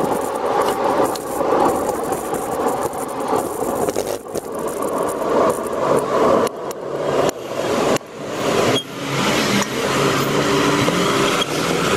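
Street noise heard while riding a folding bicycle through city traffic: a constant noisy rush of traffic and road noise, with many small clicks and knocks. The sound drops off sharply for a moment several times after the middle.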